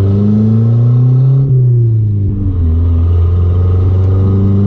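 Chrysler Conquest's turbocharged Mitsubishi G54B four-cylinder engine running while the car is driven, a steady engine note with a brief dip about a second and a half in.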